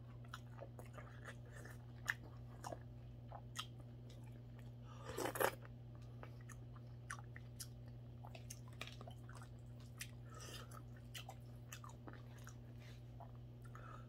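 Mouth sounds of a person eating mackerel rice porridge: soft chewing with scattered light clicks of a metal spoon against a plastic food tray. A short louder noise comes about five seconds in, over a steady low hum.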